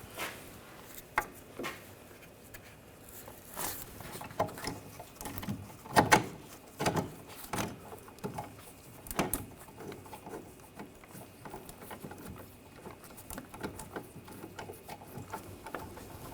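Hub bearing mounting bolts and the new hub assembly being handled and started by hand: scattered, irregular light clicks and knocks, with a few louder knocks about six and nine seconds in.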